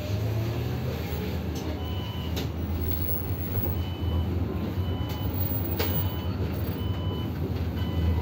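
Inside a city bus standing at a stop: a steady low rumble with short high-pitched beeps repeating about once a second, and a few sharp clicks.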